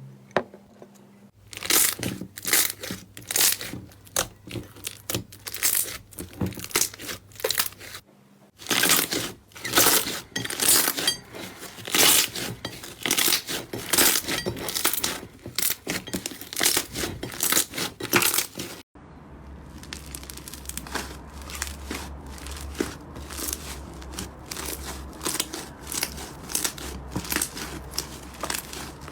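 Slime being squeezed and worked: a rapid run of sharp crackles and pops, in three stretches that each stop abruptly, the last one denser and softer.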